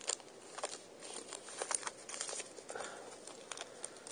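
Plastic packaging of a CD being picked and pulled open by fingers: irregular sharp clicks and short crinkling rustles.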